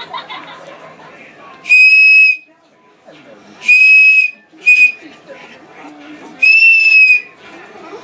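Plastic Thomas the Tank Engine toy whistle sounding four times: three blasts of about three-quarters of a second each on one steady high pitch, plus a short toot just after the second.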